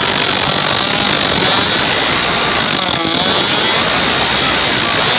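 Small petrol engine running at speed, driving a propeller on a test shaft that churns and splashes water. The engine's pitch dips and recovers briefly about three seconds in.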